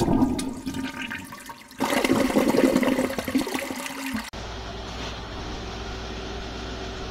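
Loud rushing, gushing water in two surges, cut off abruptly about four seconds in. A steady low hum follows.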